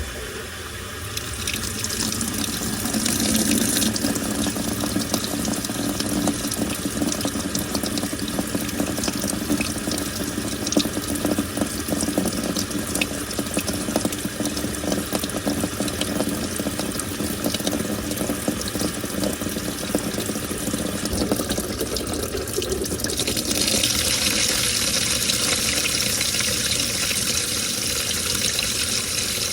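Washing machine taking in water: water rushes into the tub, starting suddenly, and the stream turns hissier near the end.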